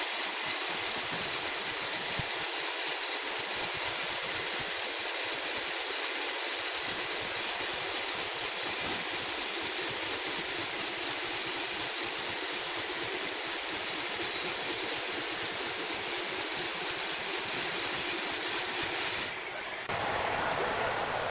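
Steady, even hissing machinery noise, with no distinct pitch, that cuts abruptly to a different sound near the end.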